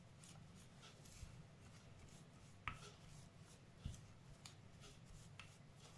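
Near silence with a few faint, scattered clicks and light rubbing from a hand squeezing a lemon half over a ceramic bowl.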